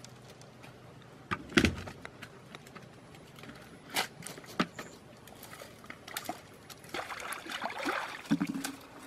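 Bare feet stepping over a fallen log and dry brush, with a few sharp knocks and taps, then feet sloshing into shallow muddy water near the end.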